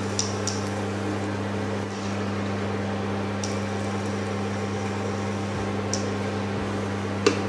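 Induction cooktop humming steadily with its cooling fan running, a low even drone with hiss. A few light clicks of utensils against the pan, the sharpest near the end.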